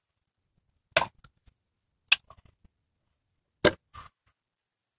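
Three sharp knocks, one to one and a half seconds apart, as a water pump housing stuck on its O-ring seal is worked loose by hand.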